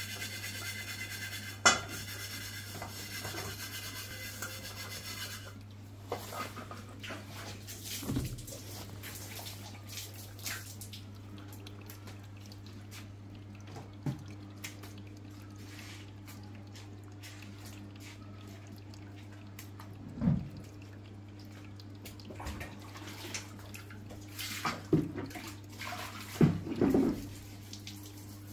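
Samsung front-loading washing machine running with water inside: a steady low hum with water sounds and a knock every several seconds. A higher whine stops about five seconds in.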